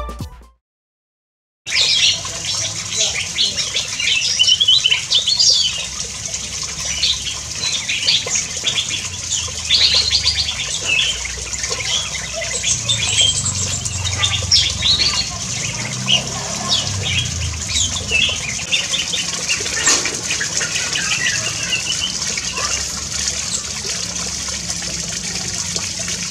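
Bulbuls chirping and calling in an aviary. Many short, scattered calls start about two seconds in, over a steady high hiss.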